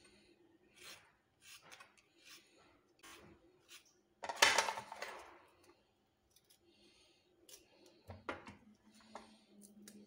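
Hand vegetable peeler scraping a raw carrot in a series of short, quick strokes. About four seconds in comes one much louder noisy sound lasting about a second, and light clicks and strokes follow near the end as vegetables are handled.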